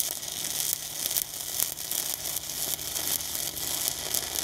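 Stick-welding arc from a 1/8-inch 7018 electrode burning at about 120 amps, a steady crackling sizzle, as a tack weld is bridged across the joint.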